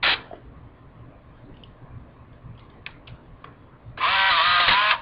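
Canon autofocus compact film camera's lens motor whirring for just under a second, driving the lens barrel, with a wavering pitch. A sharp click comes at the start and a few faint ticks come before the whir.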